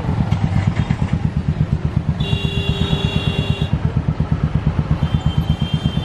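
Crowd of motorcycles idling close by, with a steady fast throbbing pulse from a nearby engine. A vehicle horn sounds for about a second and a half about two seconds in, and a shorter, fainter horn near the end.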